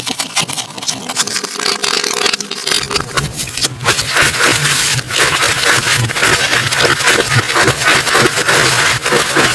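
Slime being squeezed and worked by hand, giving a dense run of sticky crackles and pops that grows thicker about four seconds in.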